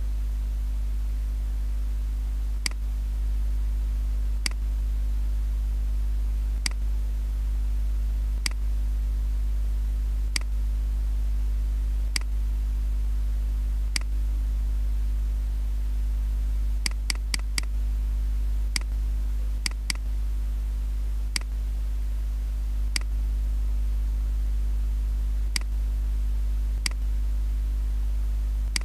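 Computer mouse clicks every two seconds or so, with a quick run of four clicks about seventeen seconds in, over a steady low hum.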